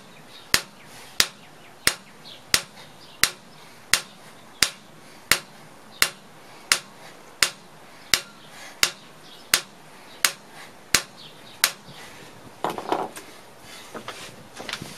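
A five-pound hammer striking the top of a six-foot steel ground rod, about seventeen steady, evenly spaced blows, roughly three every two seconds, that stop a little before the end. The rod is being driven easily into soft, water-saturated ground.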